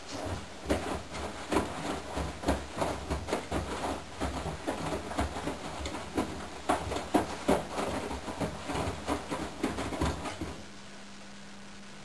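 Candy GrandO Plus front-loading washing machine drum turning during a wash, wet laundry and cushions sloshing and thudding about twice a second over the low rumble of the drive. The tumbling stops about ten and a half seconds in as the drum pauses, leaving a quiet hum.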